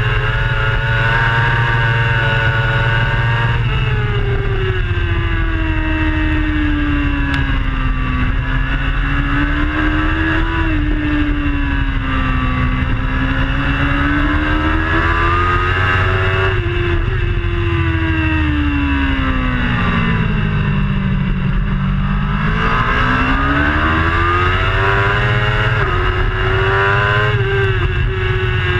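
Superbike engine at racing speed heard through an onboard camera, its pitch falling and rising with throttle and gear changes, dipping lowest about three-quarters of the way through before climbing again. Heavy wind rumble on the microphone runs underneath.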